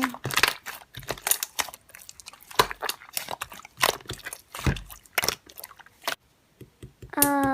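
Slime being squished and poked by hand, giving irregular sticky clicks and crackling pops.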